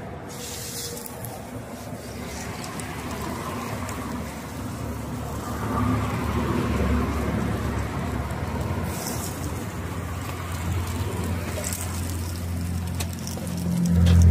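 Sopes frying in butter on a flat griddle, sizzling steadily. A low engine rumble from passing traffic grows louder in the second half.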